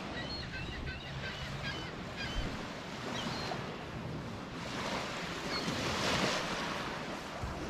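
Steady outdoor rushing of wind and lake surf, with faint high chirps in the first couple of seconds.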